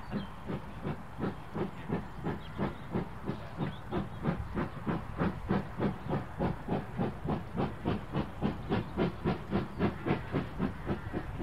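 Ivatt 2MT steam locomotive's exhaust chuffing as it pulls away, the beats coming faster and stronger, from about two a second to about three and a half a second, then fading near the end.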